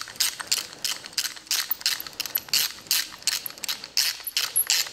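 Hand ratchet with a T30 Torx bit clicking as it is swung back and forth in rapid strokes, about three to four a second, snugging a bolt on a UTV brake caliper.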